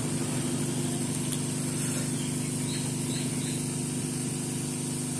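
Hot air gun of a Quick 900 3-in-1 rework station blowing steadily: a constant fan hum with a hiss of air, heating the phone's charging connector to lift it.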